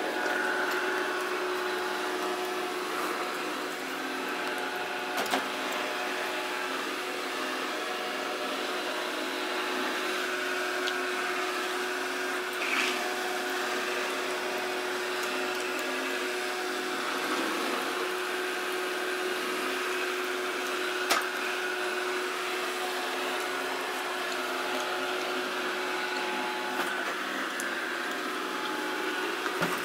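Samsung SR8751 robot vacuum cleaner running, a steady motor and fan hum with a constant tone. It is broken by a few short knocks, the loudest about two-thirds of the way through.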